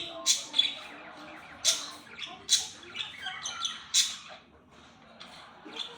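Slime being squeezed and worked by hand, giving a run of sharp clicks and pops, five louder ones in the first four seconds, then quieter.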